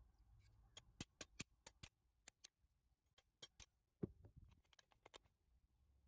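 Metal crank handle of an antique Turkish coffee grinder clicking against the square drive shaft as it is worked off: a string of sharp clicks in uneven clusters, with one duller knock about four seconds in.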